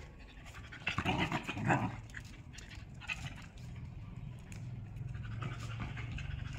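A dog snarling and growling while scuffling with a baby monkey, loudest in a burst of snarling about a second in, then lower and steadier.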